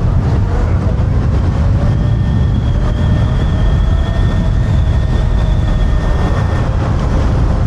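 Kaabo Wolf King GTR electric scooter riding at speed under dual-motor power: a thin, steady whine from its hub motors over a heavy low rumble of wind and road noise on the microphone.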